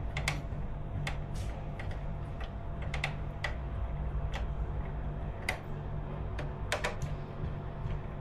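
Irregular light clicks and taps, several in a row with uneven gaps, over a steady low hum.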